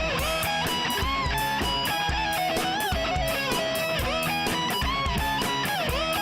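Rock music with a melodic line that bends and glides in pitch, over a steady driving beat.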